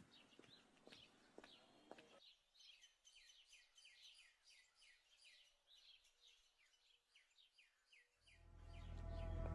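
Faint birdsong: a rapid series of short, falling chirps, with soft footsteps on a dirt path in the first two seconds. About eight seconds in, a low, ominous drone of background music swells up and grows loud.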